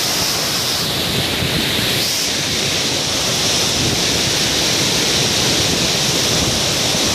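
A waterfall pouring steadily, a loud, constant rush of falling water.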